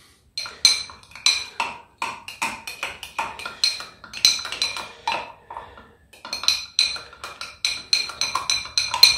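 A spoon stirring vinaigrette in a glass jar, clinking against the glass about two to three times a second, each clink ringing briefly. The stirring pauses for a moment just past the middle, then picks up again a little faster.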